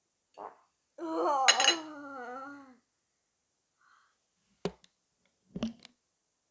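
A person's drawn-out, wavering vocal sound of about two seconds, starting about a second in, then two short sharp clinks of tableware about a second apart near the end.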